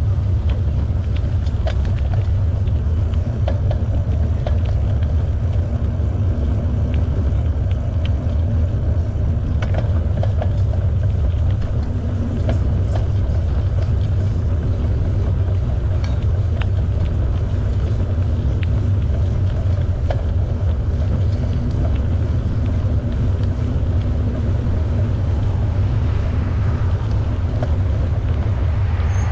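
Steady low rumble of wind buffeting the microphone and tyres rolling along the trail during a bicycle ride, with scattered small clicks and rattles.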